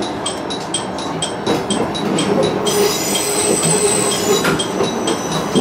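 KiHa 110 diesel railcar rolling slowly over the points into a station, with a fast, regular ticking of about five strokes a second. About three seconds in, the wheels squeal steadily for about a second and a half.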